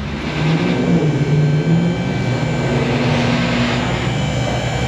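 Electric-hydraulic power unit of a vehicle lift running steadily, a loud motor hum with a faint high whine, as the lift raises a car.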